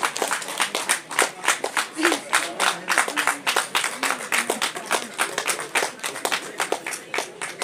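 People clapping their hands, separate uneven claps several a second, with a few voices under them.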